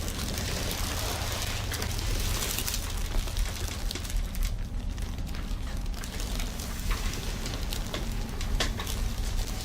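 Irregular crackling and rustling with scattered clicks over a steady low hum, from hands rubbing during a massage.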